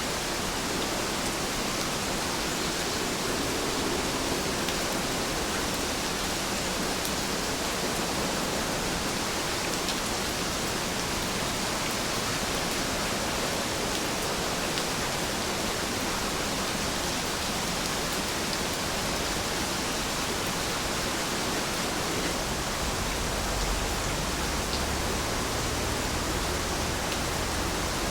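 Steady rainfall, an even hiss with a few faint drop ticks. A low rumble comes in near the end.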